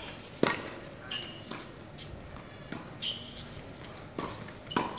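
Tennis ball being hit by rackets and bouncing on a hard court during a doubles rally: a sharp pock about half a second in, lighter hits and bounces through the middle, and another strong hit near the end.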